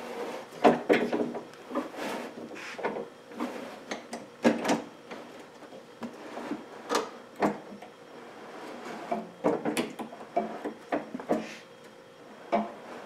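Triumph Spitfire door window winder being cranked by hand, the glass sliding in its channels with irregular clunks, clicks and scrapes from the regulator mechanism.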